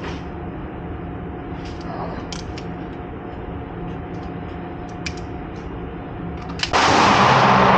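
A steady mechanical hum with a few faint clicks and knocks. Near the end, loud gunfire suddenly breaks in and keeps going.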